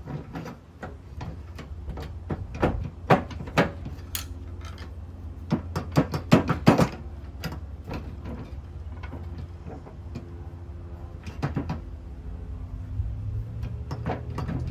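Irregular metal clanks and knocks of hand tools working on a mower deck spindle, with a quick cluster of sharp hits about six seconds in.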